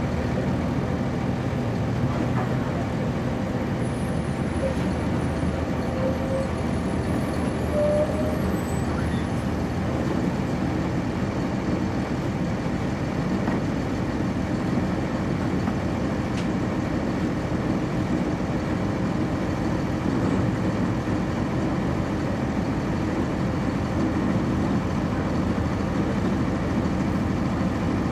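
Interior sound of a 1999 NovaBus RTS transit bus with a Cummins ISC inline-six diesel and a ZF Ecomat automatic transmission, the engine running steadily under the cabin's road noise.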